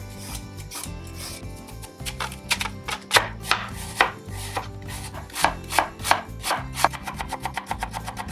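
Kitchen knife chopping on a cutting board: a few separate cuts, then from about seven seconds in a fast, even chopping of about six strokes a second.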